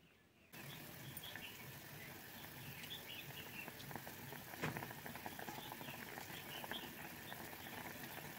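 Spiced curry gravy with oil and water coming to a boil over a high gas flame in a cast-iron kadai: a faint, steady bubbling with many small pops and crackles, starting about half a second in, with one louder pop a little past the middle.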